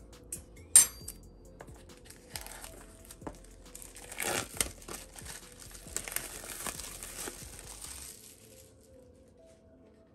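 Clear plastic shrink-wrap being torn and peeled off a cardboard smartphone box, crinkling for several seconds and loudest about four seconds in. A single sharp click about a second in.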